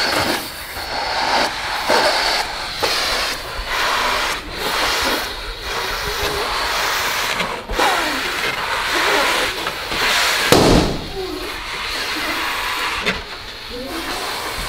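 A noisy jumble of people eating rice as fast as they can, with indistinct voices mixed in. A sudden loud noise comes about ten and a half seconds in.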